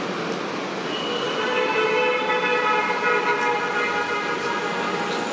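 A long, steady horn sounding for about four seconds over constant background noise, fading in and out.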